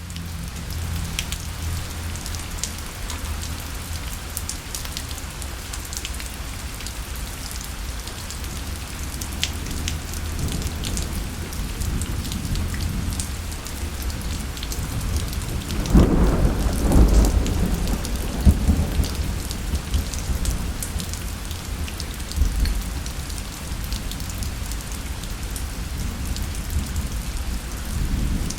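Steady rain falling, with scattered sharp drop ticks. About sixteen seconds in, a roll of thunder rumbles for about three seconds, and a smaller rumble follows a few seconds later.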